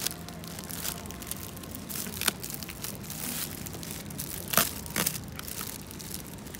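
Plastic film crinkling and rustling as wrapped produce is handled and set into a plastic shopping basket, with a few sharp clicks and knocks, the loudest about two-thirds of the way in.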